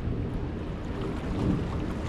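Wind buffeting the microphone: a steady low rumble that swells in a gust about a second and a half in.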